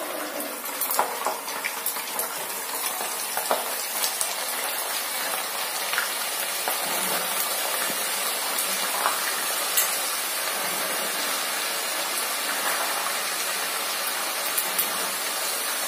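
Peeled field beans (avarekalu) deep-frying in hot oil in a kadai. A steady, vigorous sizzle starts as the beans are tipped in, with scattered sharp pops and crackles, busiest in the first few seconds. This is the early stage of frying, before the beans turn brown.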